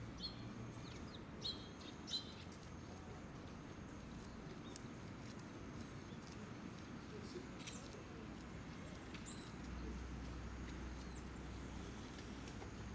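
Faint, scattered bird chirps over a steady low rumble, with a few sharp clicks in the first two seconds; the rumble grows stronger near the end.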